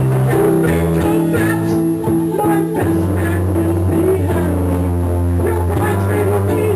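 Music with sustained bass notes changing every second or so under a busier melody; no speech.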